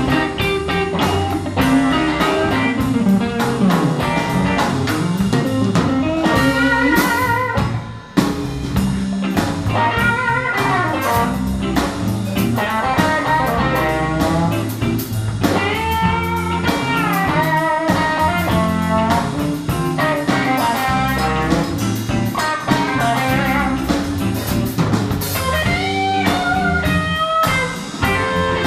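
Live electric blues band playing an instrumental section: a lead electric guitar solos with bent, wavering notes over drum kit and rhythm guitar, with a short break about eight seconds in.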